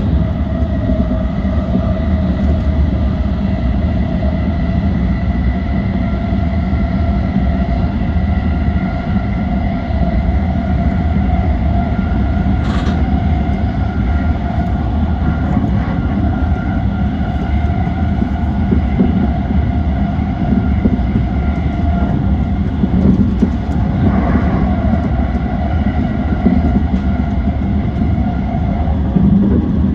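Yokosuka Line E235-1000 series electric train running at steady speed: a constant rumble of wheels on track with a steady whine of several held tones. A single sharp click sounds about 13 seconds in.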